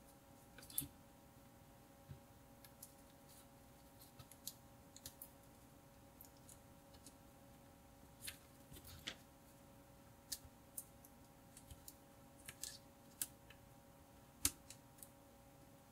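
Old protective plastic film being peeled off a calculator's metal faceplate: faint, irregular crackles and ticks as it tears and lifts, over a faint steady hum.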